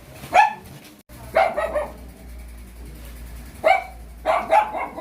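A dog barking in short, sharp barks: a single bark, a quick run of barks, then another single bark and a short run near the end.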